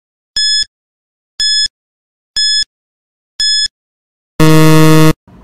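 Countdown timer sound effect: four short, high electronic beeps one second apart, then a longer, lower buzzer tone, the loudest sound, signalling that time is up.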